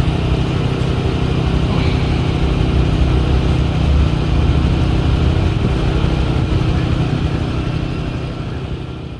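Motor engines idling steadily, a low even hum that fades out near the end.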